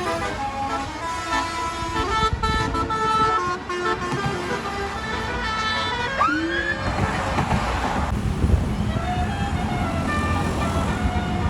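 Telolet Basuri multi-tone bus air horn playing a quick melody of stepped notes. About six seconds in comes a rising whistle-like glide, then a burst of hiss, and more horn notes near the end, over low road rumble.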